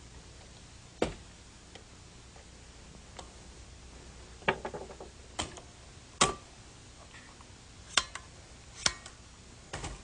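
Scattered sharp clicks and clacks of rifle parts, about seven spread over the stretch with a quick cluster near the middle, as a .223 semi-automatic rifle is handled and its wooden stock swapped for a plastic one.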